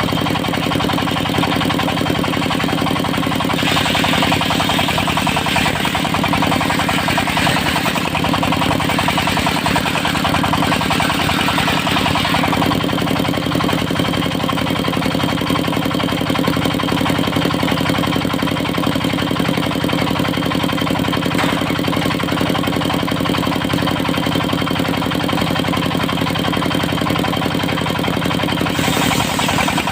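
Engine of a portable circular sawmill running steadily. A harsher hiss joins from about four to twelve seconds in.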